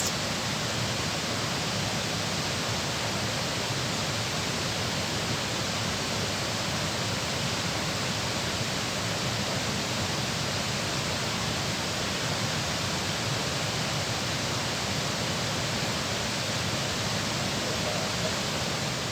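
Steady rush of water pouring through a dam, an even noise with no breaks.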